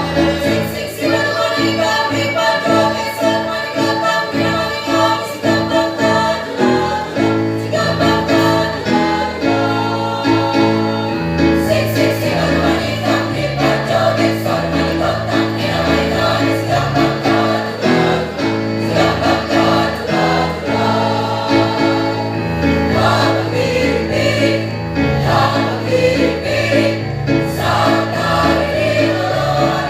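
Choir singing together in parts over instrumental accompaniment, with a repeating bass line underneath.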